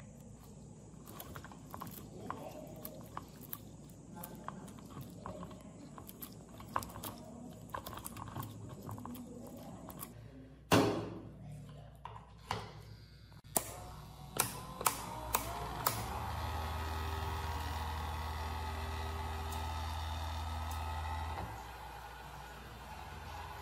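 Gloved hands handling wires with faint rustling and small clicks, then a sharp click as a plug goes into a power strip and a few more clicks. The restored mini electric air blower's motor spins up, rising in pitch, and runs with a steady hum, dipping in level for a moment near the end.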